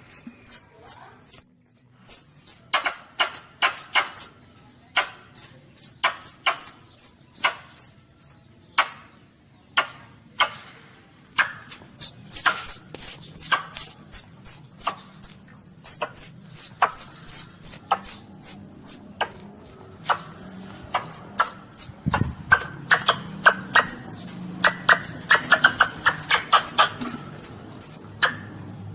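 Baby Asian palm civet (luwak) calling: a long run of short, high-pitched squeaks that each drop in pitch, about three a second. Roughly three quarters of the way through there is one dull thump, after which the calls come faster and more tightly bunched.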